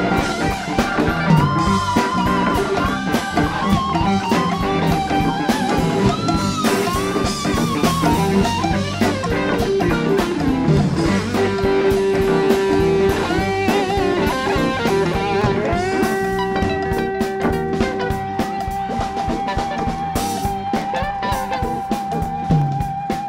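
Blues-rock band playing live with no vocals: an electric guitar solos over drum kit and bass, with gliding, bent notes, and then holds one long note with vibrato from about two-thirds of the way in.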